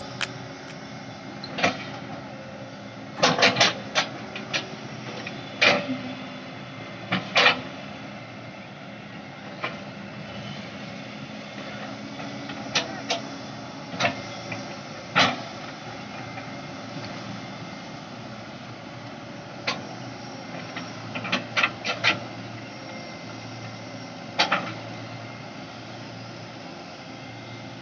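Excavator's diesel engine running steadily at a low hum, with scattered sharp knocks, several in quick clusters.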